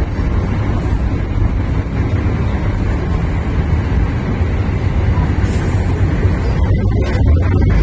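Mercedes-Benz O405 bus heard from inside the passenger cabin while driving: a steady, low rumble of engine and road noise.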